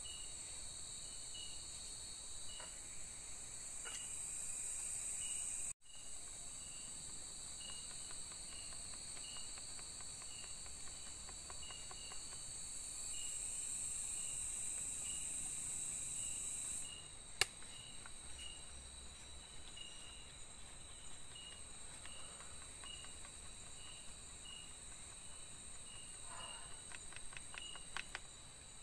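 Night-time forest insect chorus: a steady high shrill drone with a cricket-like chirp repeating at an even pace, a little more than once a second. A single sharp snap about two-thirds of the way through.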